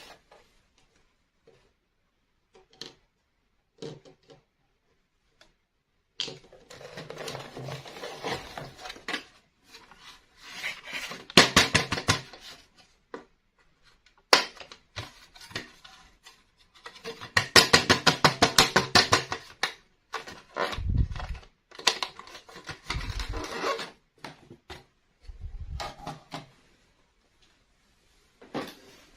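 Small plastic toy pieces being handled and clattering against each other, with two stretches of rapid, even clicking and a few dull thuds.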